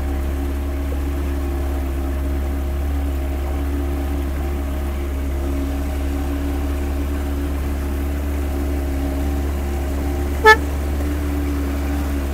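Motorboat engine running steadily underway, with one short horn toot about ten seconds in.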